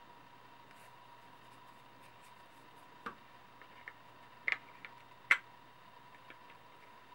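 A few short, sharp clicks and taps of hard plastic and a steel screwdriver bit as a Kydex sheath and Tek-Lok clip are handled and a screw is worked. There is a close pair of clicks about four and a half seconds in and the loudest one just after five seconds, over a faint steady hum.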